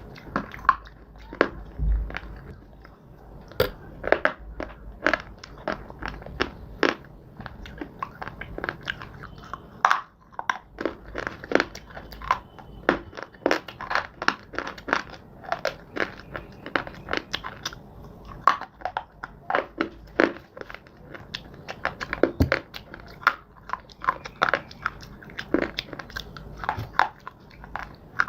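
Close-miked biting and chewing of dry clay and slate chunks: sharp, irregular crunches several times a second, between softer grinding chews.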